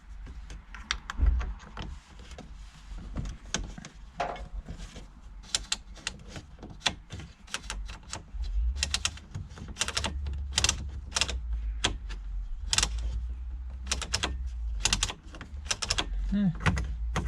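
Irregular small clicks and knocks of the heater-control knobs and panel being handled, pulled and turned, with a low rumble of handling in the middle.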